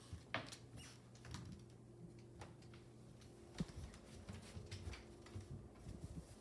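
Faint, irregular taps and scuffles of a cat batting a live mouse around, over a low steady hum.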